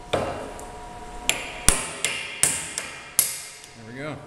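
Ball-peen hammer striking steel wedges driven between a Jacobs drill chuck and its arbor to force the stubborn arbor out. About seven sharp blows come over three seconds, each with a short metallic ring.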